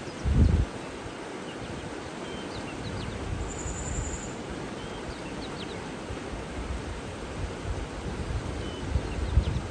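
Steady rushing of water with small birds giving short, scattered chirps and one brief high trill midway. Low buffeting rumbles of wind on the microphone come just after the start and again near the end.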